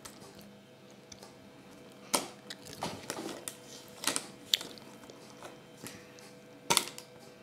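Small plastic Kinder Surprise toy pieces clicking and tapping as they are handled and fitted together by hand: a few scattered sharp clicks, a quick run of them in the middle and the loudest near the end.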